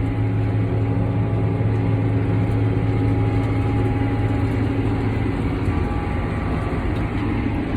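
Tractor's diesel engine running steadily at constant speed, a low even drone.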